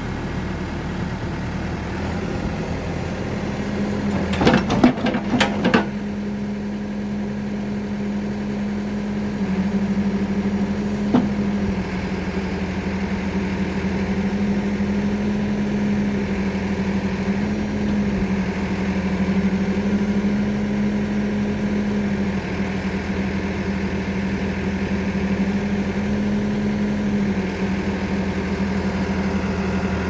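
Caterpillar 420D backhoe loader's four-cylinder diesel engine running steadily while the hydraulics work the backhoe arm, the engine note dipping and rising slightly under load. A quick run of metal clanks about four to six seconds in, and a single clank about eleven seconds in.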